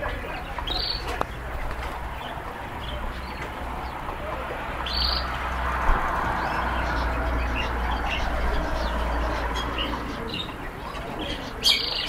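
Caged canaries giving a few short, high chirps, about one every few seconds and a quick cluster near the end, over a steady background hiss and a low rumble.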